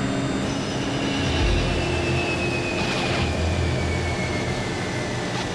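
Lockheed L-188 Electra's four Allison turboprop engines at takeoff power on the takeoff run. A steady engine drone with a high whine that falls slowly in pitch as the aircraft passes.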